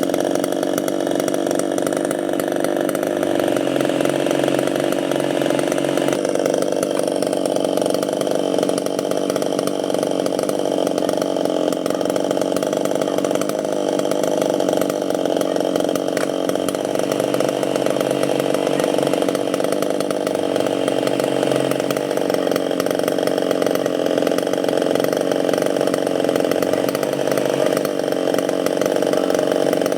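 Chainsaw running steadily without letting up, cutting through durian wood.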